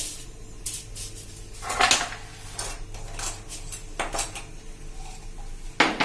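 Sheet of aluminium foil crinkling and crackling as it is handled and smoothed by hand, in irregular crackles, loudest about two seconds in and again near the end.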